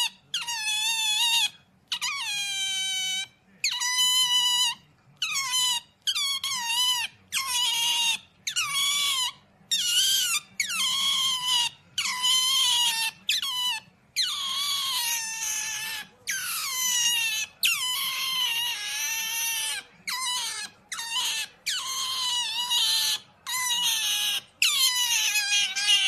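An otter squeaking over and over: a run of high-pitched calls, roughly one a second. Each call dips in pitch at its start and then holds steady.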